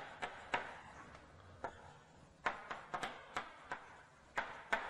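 Chalk tapping and clicking against a blackboard as words are written: about a dozen sharp, irregular taps.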